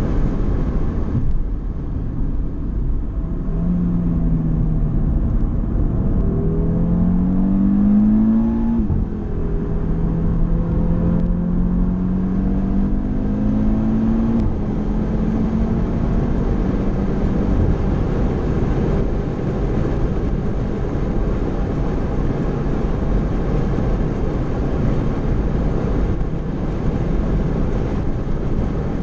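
Car engine heard from inside the cabin, accelerating at full track speed: its note climbs, drops back at an upshift about nine seconds in, climbs again, then holds and sinks under the wind and tyre roar after about seventeen seconds.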